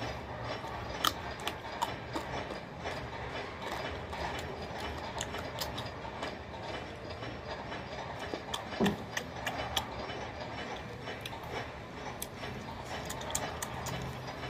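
Close-up eating sounds: a man chewing food taken by hand from a steel plate, with irregular mouth clicks and smacks. A steady low hum runs underneath, and there is one louder thump partway through.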